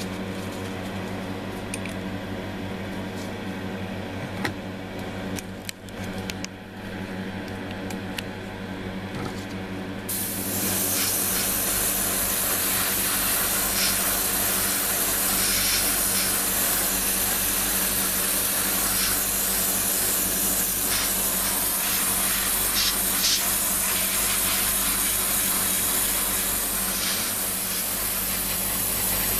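A steady mechanical hum with a few small clicks, then about ten seconds in a continuous hiss starts abruptly and holds: a gravity-feed airbrush spraying paint.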